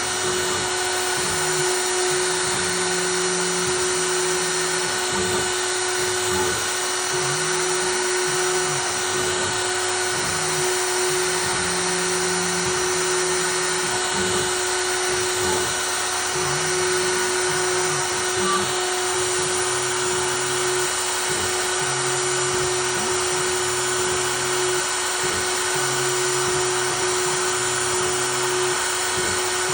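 CNC router carving wood: the spindle runs with a steady, unchanging whine, while the stepper motors' low tones shift in pitch every second or so as the cutter moves along its path.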